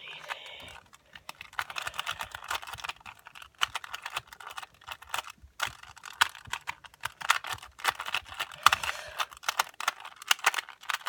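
A plastic 2x2 speed cube being turned fast during a timed solve: rapid, irregular clicking of the layers, with a brief pause about halfway through.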